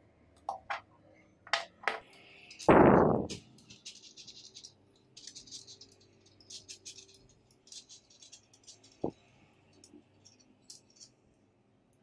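Small magnetic balls clicking and rattling as they are snapped together and pulled apart by hand, in scattered sharp clicks and short spells of fine rattling. A loud thump about three seconds in stands out above the rest.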